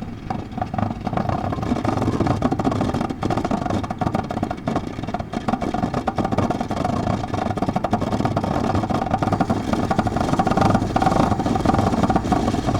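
A machine running with a fast, dense clatter over a steady hum, its level holding even throughout.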